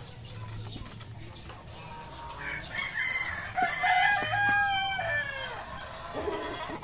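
Light Brahma rooster crowing once: a single drawn-out crow of about three seconds, starting a couple of seconds in.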